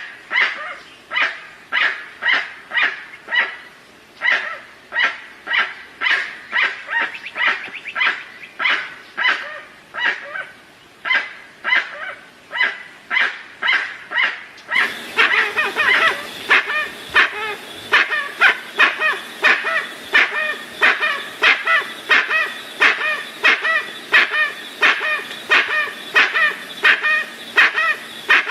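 Dusky-legged guan (jacuguaçu) calling: a long run of short, loud, honking calls, about two a second. About halfway through the sound suddenly grows denser and fuller.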